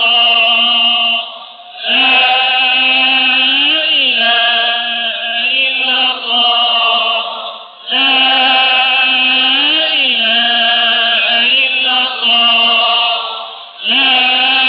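Religious chanting: a sustained, melismatic vocal line whose phrase repeats about every six seconds, with brief pauses for breath between the phrases.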